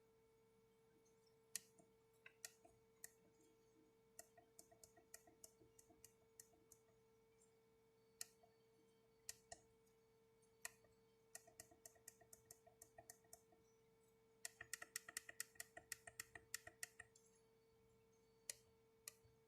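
Small push buttons being clicked in irregular runs, with a fast flurry of rapid presses a little past the middle, over a faint steady hum.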